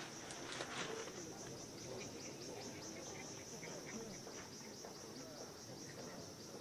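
Insects chirring steadily, a high-pitched trill pulsing quickly, faint under low background noise.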